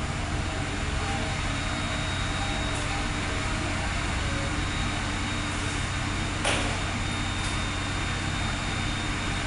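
Steady low hum and hiss of workshop background noise, with one short click about six and a half seconds in.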